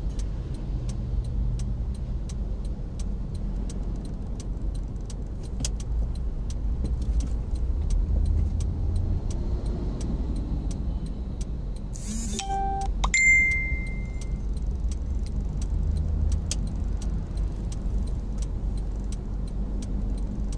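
Steady low road and engine rumble inside the cabin of a moving car, with faint light ticking and jingling throughout. About twelve seconds in comes a short clatter, then a brief high electronic beep.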